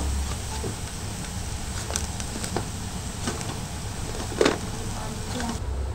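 Light taps and scrapes of baked samosas being turned by hand on a steel plate, a few scattered, the loudest about four and a half seconds in, over the steady low rumble of a gas burner.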